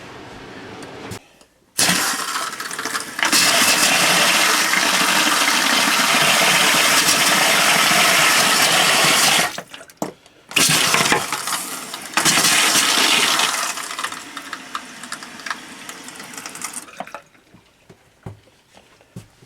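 Travel-trailer bathroom sink faucet running hard, water pouring into the sink while the fresh-water plumbing is tested for leaks. It comes on about two seconds in, stops briefly about halfway, then runs again and tails off near the end.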